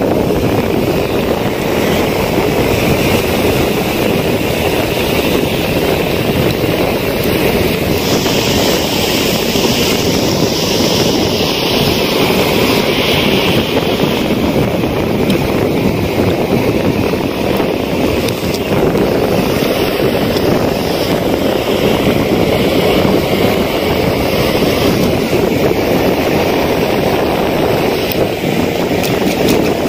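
Steady wind noise buffeting the microphone, mixed with waves breaking and washing up the shore.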